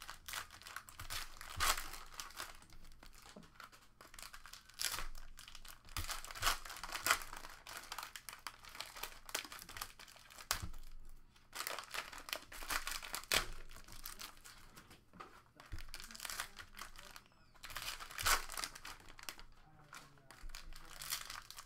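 Plastic wrappers of trading card packs crinkling in uneven bursts as the packs are handled, pulled from their box and stacked.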